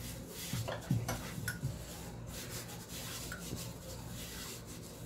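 A hand rubbing ghee over a round wooden board: a faint, steady rubbing and swishing, with a few light taps and knocks in the first second or so.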